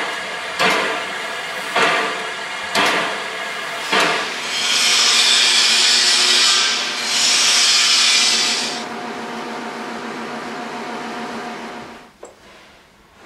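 Steam locomotive with steam up: heavy beats about once a second over a steady hum, then two long, loud blasts of steam hiss with a short break between them. The hum goes on alone until the sound drops away near the end.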